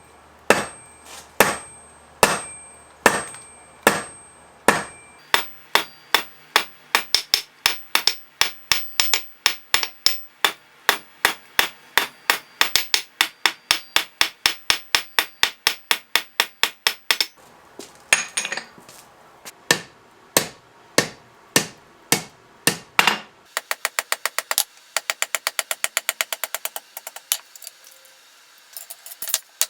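Hand hammer forging 3/8-inch mild steel round stock on an anvil, drawing out a taper to make a punching drift. Spaced blows at first, then a fast even run of about three strikes a second, more spaced blows, and near the end a quick patter of light taps.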